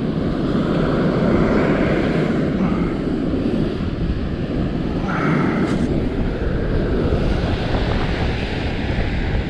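Steady rushing of wind on the microphone mixed with surf washing on the beach.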